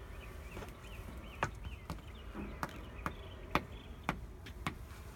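A series of about seven sharp taps or clicks, unevenly spaced about half a second apart, over faint, quickly repeated high chirps.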